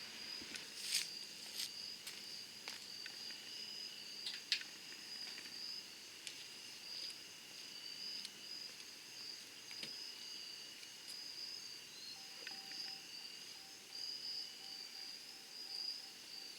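Insects chirping in a steady high-pitched trill, with a few faint clicks.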